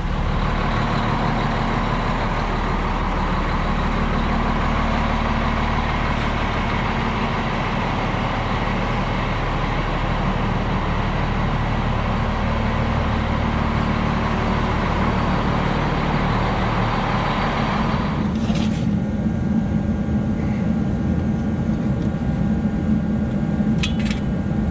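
Semi truck's diesel engine running as the truck is backed up a short way. About three-quarters of the way through comes a brief hiss, and the engine then runs on at a steady idle, with another short click near the end.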